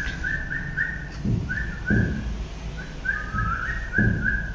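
A person whistling short notes at one pitch, in quick runs of two to four, as when calling a puppy, with a few low thumps.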